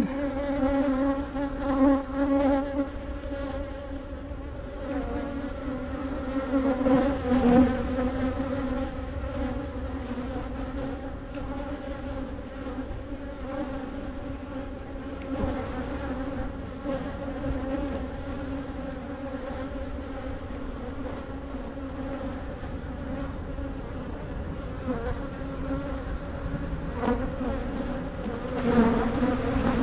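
Honey bees buzzing in a loud, steady hum close to the microphone, swelling louder a few times as bees fly right at it. The bees are agitated and defensive during the hive inspection.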